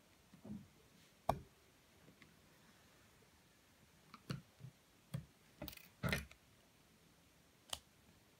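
Sparse, faint clicks and soft handling noises from hand-sewing: a needle and thread drawn through velvet stretched over a CD.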